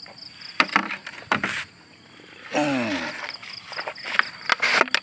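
Scattered knocks and clatters as an eel trap is handled and emptied into a netted basin of live eels, over a steady high drone of insects. Near the middle comes one short low call that falls in pitch.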